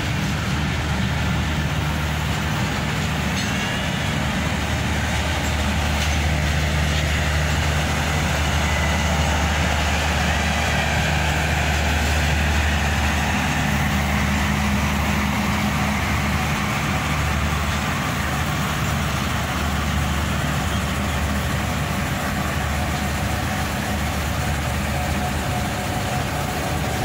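Passenger coaches of an express train rolling past close by: a steady rumble of steel wheels on the rails.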